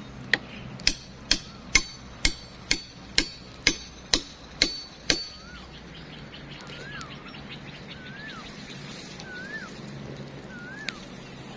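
About ten hammer blows, roughly two a second, each a sharp knock with a ringing tail; they stop about five seconds in. After that an animal gives a short call that rises then falls, repeated about once a second.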